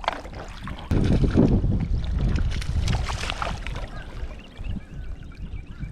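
Wind buffeting the microphone, gusting up sharply about a second in, over water sloshing and splashing around an angler wading in a shallow river.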